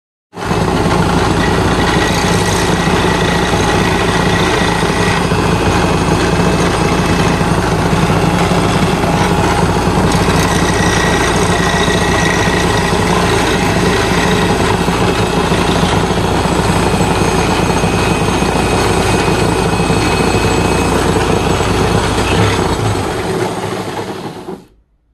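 Electric saw motor running steadily, its blade set in a cut through aluminium plate, then winding down and stopping near the end.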